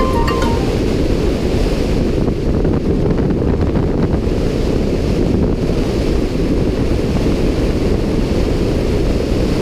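Loud, steady rush of freefall wind buffeting the camera's microphone during a skydive.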